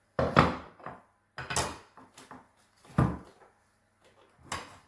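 Kitchen utensils and containers being handled: a series of about five short knocks and clatters, the first the loudest.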